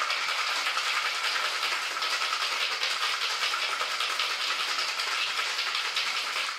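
Ice rattling hard and fast inside a metal cocktail shaker as the drink is shaken, a steady run of quick clicks that stops abruptly at the end.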